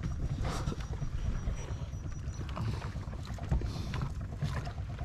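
Small raft afloat on the sea: a steady low rumble of water and wind, with scattered light knocks and clicks from the raft.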